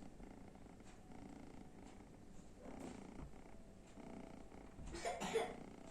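Sleeping kitten purring, a soft steady rumble, with a louder, noisier burst about five seconds in.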